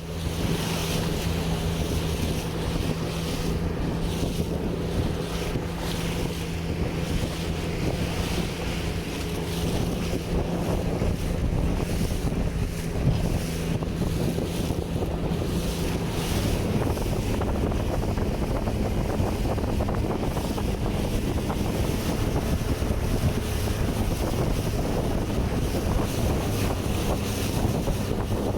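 Motorboat engine running steadily under way, its note stepping up slightly about seventeen seconds in, with wind buffeting the microphone and water rushing past the hull.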